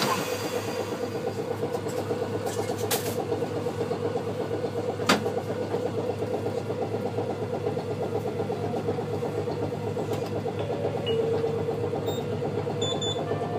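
Kumamoto City Tram 8800-type streetcar running slowly, heard from inside the car: a steady, even mechanical hum that does not rise or fall, with a sharp click about five seconds in.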